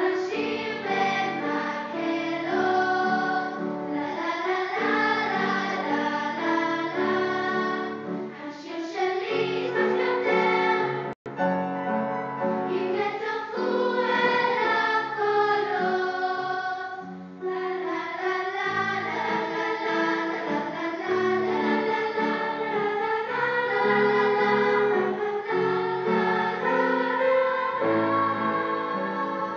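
Children's choir singing in several voices, recorded through a phone's microphone. The sound cuts out for an instant about eleven seconds in.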